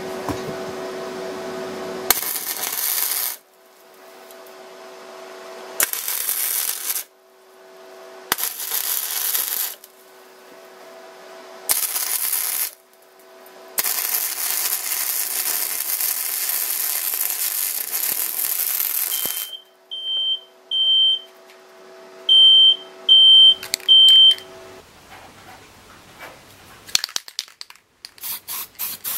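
MIG welder arc sizzling in short tack welds of a second or so, then one longer weld of about five seconds, with a steady hum between them. Six short high beeps follow, and near the end a spray-paint can rattles as it is shaken.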